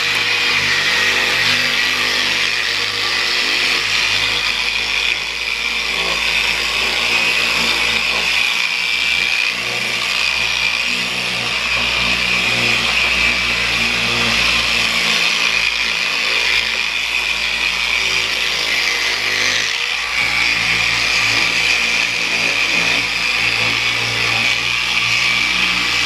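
Electric polishing buffer running steadily as it works over motorcycle paint, a continuous motor whine that dips briefly about five seconds in and again near twenty seconds.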